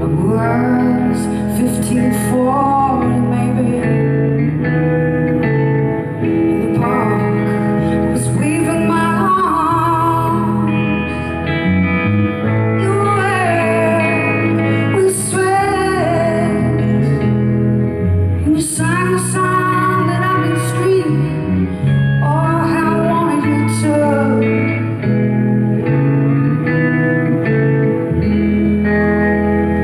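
Live band music: a woman singing slow phrases with vibrato over electric guitar chords. The singing stops about three quarters of the way through and the guitar plays on alone.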